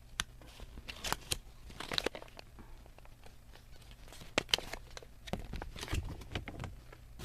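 Toy packaging and paper being handled: irregular crinkling and rustling with scattered small clicks and taps.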